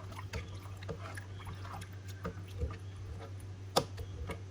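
Scattered light clicks and taps of kitchen utensils being handled while cooking, with one sharper click near the end, over a steady low hum.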